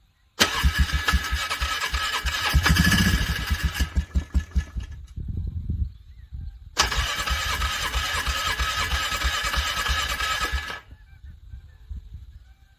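An ATV's electric starter cranks the engine in the freezing cold in two bursts of about four seconds each, separated by a short pause. The engine turns over with a fast pulsing beat but struggles and does not catch.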